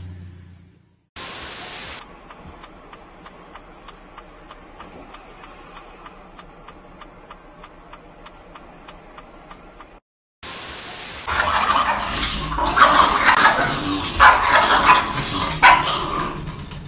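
A small puppy barking in short, irregular yaps. Before it come two short bursts of hiss where the clips change, with faint regular ticking, about two a second, between them.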